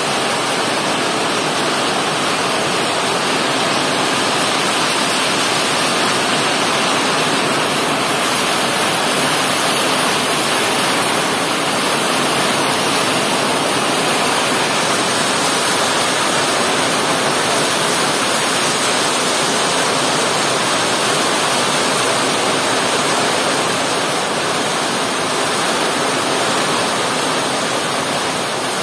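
Heavy rain falling steadily on trees and broad banana leaves: a dense, even hiss.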